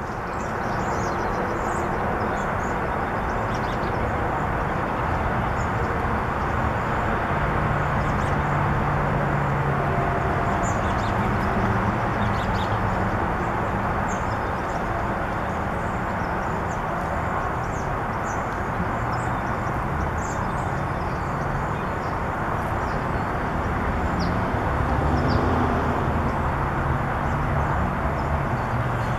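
A steady outdoor rumble, like distant traffic, with faint short high-pitched bird calls scattered through it.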